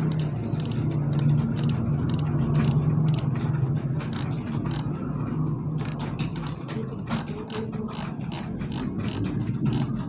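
Computer keyboard keys clicking in irregular runs of keystrokes as someone types, over a steady low hum.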